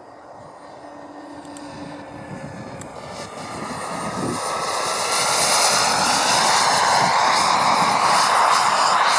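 Radio-controlled model jet's engine growing louder over about five seconds, then running steady and loud with a high whine.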